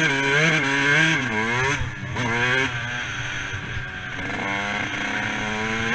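Dirt bike engine revving up and down while being ridden, its pitch climbing and dropping several times, then holding lower and steadier near the end.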